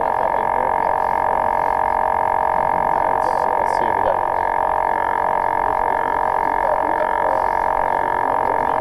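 Steady, even-pitched whine of a camera drone's propellers hovering.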